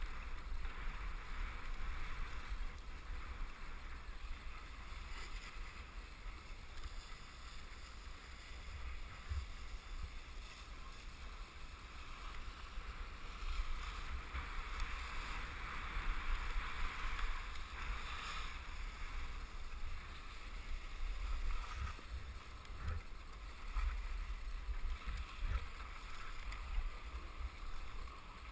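Wind rumbling on an action camera's microphone while skiing downhill, with the hiss of skis sliding over packed snow, which swells about halfway through.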